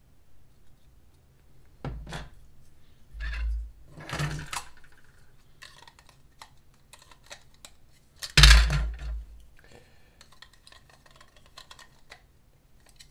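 Hard plastic miniature parts and a small bottle being handled and knocked against a wooden desk: a few dull thumps, the loudest about eight seconds in, with light clicks and rubbing between.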